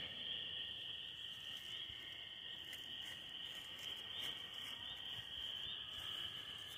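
Steady high-pitched chorus of night insects, unbroken throughout, with a few faint ticks over it.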